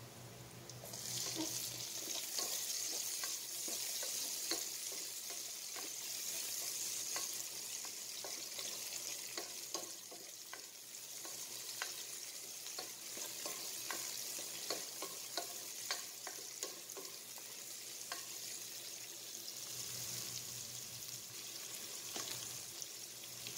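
Chopped red onion sizzling as it sautés with garlic in hot oil in a pot, the sizzle starting about a second in. A ladle stirring makes frequent light knocks and scrapes against the pot.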